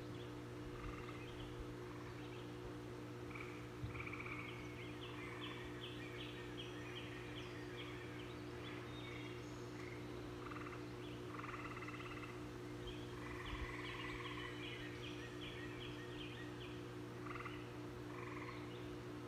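Runs of short, rapidly repeated animal calls, two longer bursts lasting a few seconds each, over a steady low hum.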